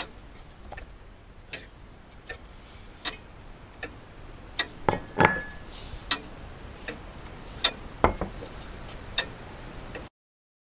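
Scattered light clicks and ticks at uneven intervals over a faint hiss, with a brief high tone a little past the middle; the sound cuts off abruptly to silence shortly before the end.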